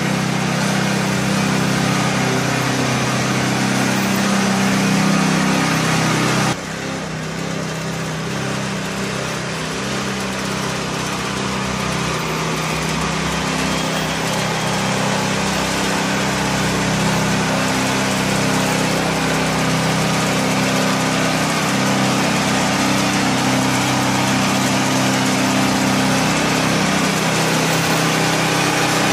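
Small engine of a self-propelled hazelnut harvester running steadily as the machine drives along. The sound drops and changes abruptly about six seconds in.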